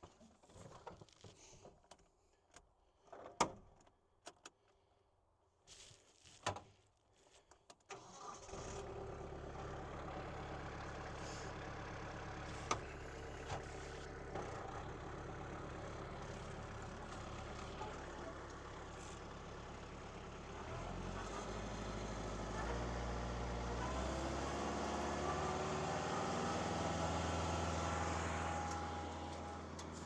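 Knocks and clicks as the operator climbs into the tractor cab. About eight seconds in, the compact tractor's engine starts and settles into a steady run. From about twenty seconds in it is throttled up, and a rising whine climbs as the PTO-driven Woodland Mills WC68 6-inch wood chipper spins up.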